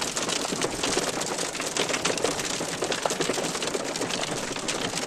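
Heavy hail drumming on a car's roof and windows, heard from inside the cabin: a dense, steady clatter of countless small hits.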